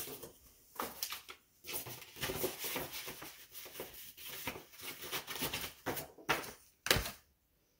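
Paper and packaging rustling as things are handled in a cardboard box, with scattered soft taps and a single sharp knock near the end.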